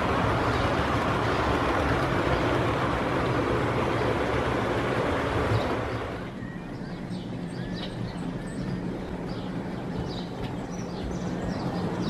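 A train of Pullman coaches rumbling past on the track, the rumble falling away suddenly about halfway through. After that, birds chirp over a low steady hum as a green BR diesel locomotive approaches.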